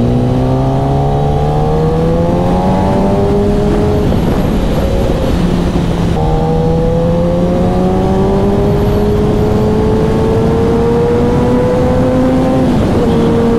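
Sport motorcycle engine pulling steadily with a slowly rising pitch, shifting up about four seconds in, pulling again and easing off near the end. Steady wind and road rush lie under it.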